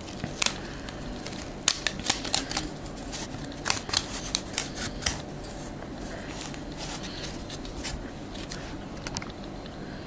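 Cardboard standee and its packaging being handled: a quick run of sharp clicks and crinkles for about five seconds, then only a few scattered ones.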